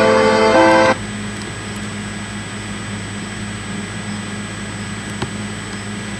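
Piano accompaniment holding its last chord, which stops about a second in. A steady low electrical hum and room noise follow, with one faint click about five seconds in.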